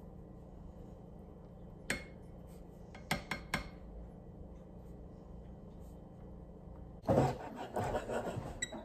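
A few sharp clinks of a batter cup or utensil against a nonstick frying pan over a faint steady hum. About seven seconds in, a knife and fork start scraping and clinking busily on a plate while cutting strawberries.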